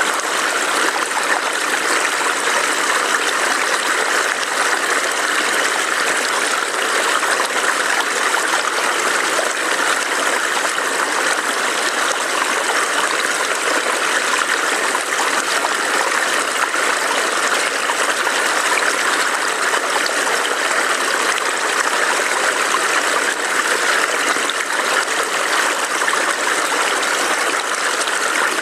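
Small forest stream burbling steadily over rocks, an even rushing wash of water with no change throughout.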